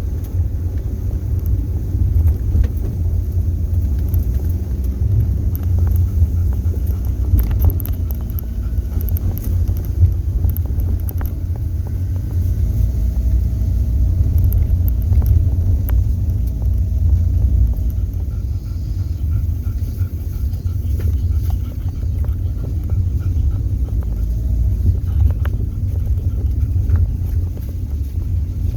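Low, unsteady rumble of wind buffeting the microphone outdoors.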